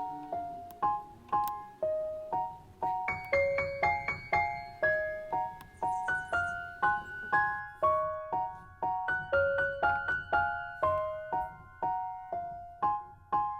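Background music: a gentle melody played on piano or electric piano, a few notes a second, each note decaying before the next.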